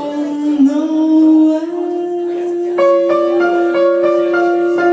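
A woman singing one long held note, with piano chords struck several times in the second half.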